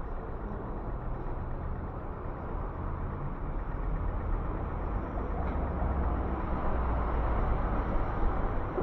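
City street traffic: motor vehicles running past with a low engine rumble that grows louder over the second half.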